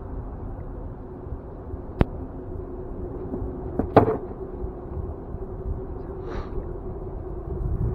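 Two sharp knocks on a small boat, a crisp click about two seconds in and a louder knock around four seconds, over a steady low rumble and faint hum.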